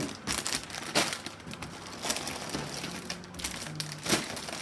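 Plastic bags of Lego pieces crinkling and rustling as they are pulled out of the box, with a sharper crackle about a second in and another near the end.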